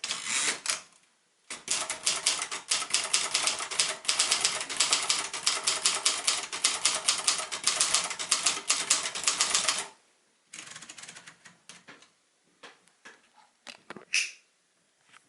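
Royal Mercury portable manual typewriter being typed on quickly, a fast stream of key strikes with a brief pause about a second in. The typing stops about ten seconds in, giving way to quieter scattered clicks and rattles, with one sharper sound near the end.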